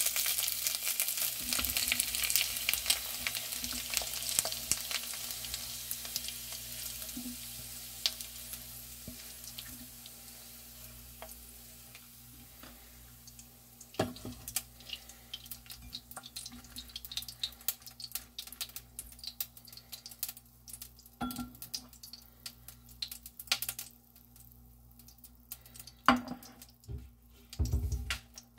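Cocktail sausages sizzling in a frying pan, the sizzle dying away over about twelve seconds. After that come scattered clicks and scrapes of a plastic spatula against the plate and pan.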